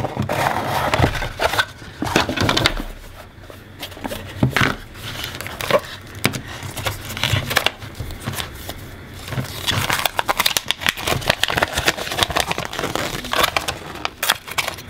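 A hard-to-open cardboard box and plastic packaging being worked open by hand: continual crackling, scraping and rustling, with many small clicks and taps.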